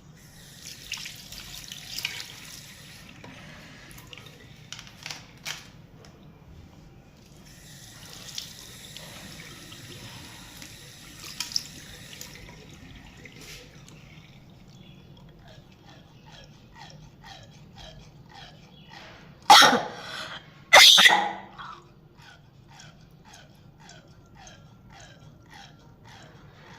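Tap water running into a bathroom sink in two short spells. Then come two loud coughs about a second apart, followed by a run of light, regular strokes at about two a second.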